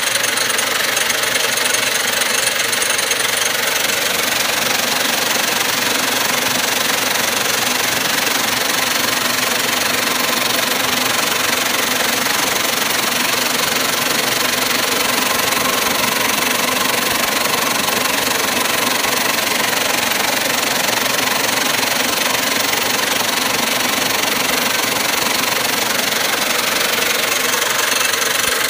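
Giant Finishing vibratory bowl tumbler running, with a dense, steady rattle of once-fired military brass cases jostling across its vibrating perforated separating screen.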